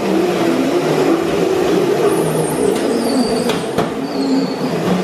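Two Razor Crazy Cart electric drift karts driven hard on a concrete floor: their motors whine, rising and falling in pitch with speed, over the skid of their wheels on the concrete. A couple of sharp knocks come about three and a half seconds in.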